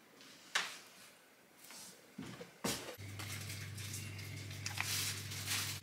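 Quiet with a few soft clicks, then from about three seconds in a steady low hum. Over the hum, a hand-twisted spice mill grinds in a run of short, crackling rasps.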